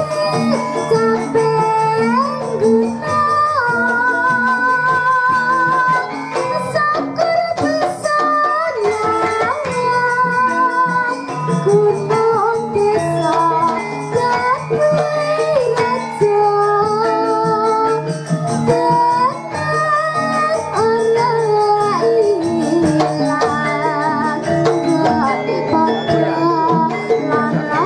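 Javanese gamelan ensemble playing: bronze metallophones and gongs striking steady repeating notes, driven by kendang drums, under a female singer (sindhen) holding wavering, ornamented notes into a microphone.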